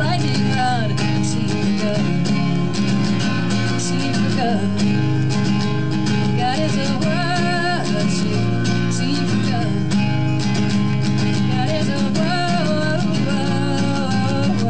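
Acoustic guitar strummed steadily in a live solo folk performance, with a woman's voice singing drawn-out notes over it at several points.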